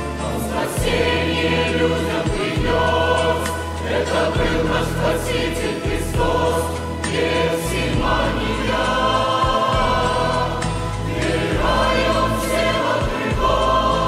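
Large mixed choir of men and women singing a slow hymn in sustained chords over a steady low accompaniment.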